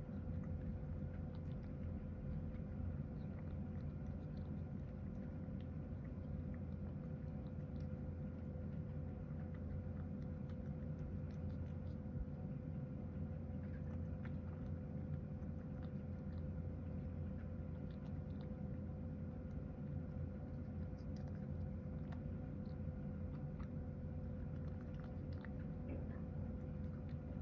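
A cat eating chopped carrot mixed with bonito flakes from a ceramic bowl: soft chewing with faint small clicks. A steady low hum runs underneath.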